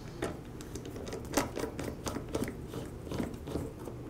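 Plastic bump head knob being pressed in and screwed onto a Ryobi string trimmer head by hand: irregular small plastic clicks and rubbing as it turns against its spring.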